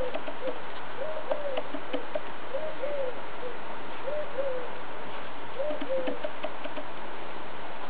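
A Groenendael puppy gnawing on a raw guineafowl carcass, with faint crunching clicks, while a bird coos in short arched calls about once a second, stopping about six seconds in.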